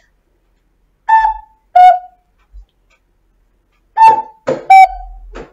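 A small toy flute imitating a cuckoo: two 'cou-cou' calls, each a higher note followed by a lower one, about three seconds apart.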